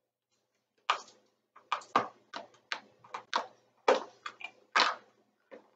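Felt-tip markers being handled, making a quick irregular run of about fifteen sharp plastic clicks and taps that starts about a second in.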